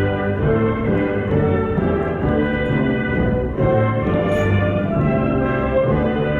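Orchestral music with brass, holding long sustained chords that change to a new chord a little past halfway.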